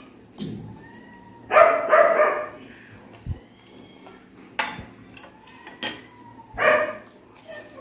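A dog barking indoors: a pair of short barks about one and a half seconds in and another bark near the end, with a few light clicks of spoons on dishes between them.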